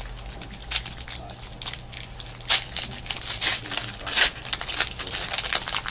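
Trading card pack wrappers being torn open and crinkled in the hands: a run of short, sharp crackling rustles, loudest about two and a half and four seconds in.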